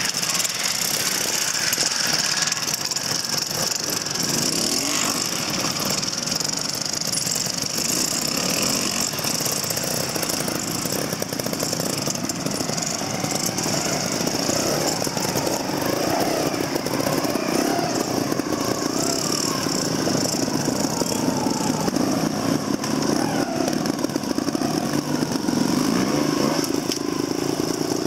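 Several trials motorcycle engines running and blipping the throttle as the bikes climb rock ledges. The revs rise and fall, with a nearer bike getting louder in the last ten seconds or so.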